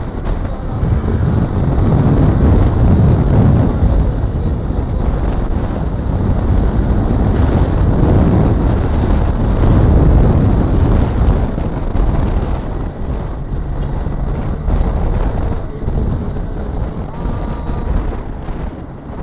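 Wind rushing over the microphone of a moving Triumph Tiger 660 motorcycle, with the bike's running and road noise beneath it. The wind noise grows louder about two seconds in and eases after about eleven seconds.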